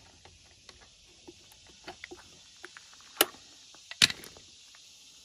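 Small metallic clicks and taps as a filter can cutter is taken off a cut-open spin-on fuel filter canister and the cut lid is handled, with two louder sharp clacks about three and four seconds in.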